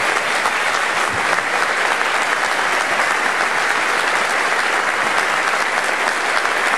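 An audience applauding, steady and sustained.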